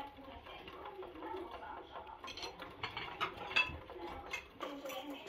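Cutlery and china plates clinking and tapping irregularly as a spoon serves food onto a plate and forks work at plates, the clicks coming thicker after about two seconds.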